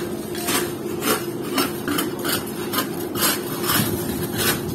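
A long-handled scraper knocking and scraping barnacles off a boat hull in quick repeated strokes, about two or three a second. A steady low hum runs underneath.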